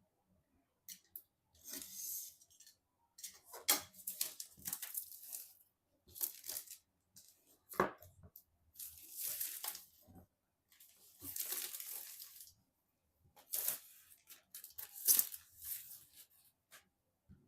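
Packaging being torn and rustled in several separate pulls, each lasting up to a second or so, with small clicks and knocks as parts are handled.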